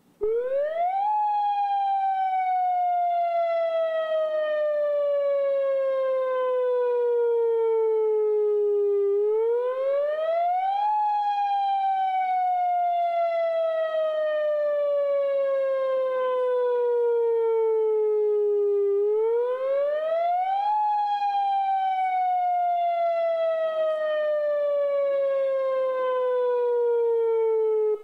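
Electronic outdoor emergency warning siren, a pole-mounted array of stacked horn speakers, sounding in a scheduled test. It plays one loud tone that sweeps up quickly and then slides slowly down over about eight seconds, three times over, and stops abruptly.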